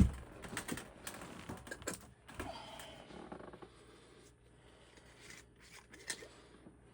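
A knock, then scattered light clicks and rattles of tools and plastic plumbing parts being handled, busiest in the first few seconds and sparser near the end.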